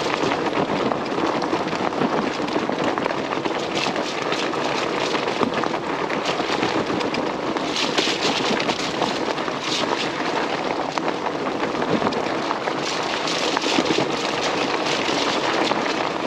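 Fat tires of an electric mountain bike rolling fast over a dirt trail: a steady rough tire noise with scattered crackles and snaps from the ground surface.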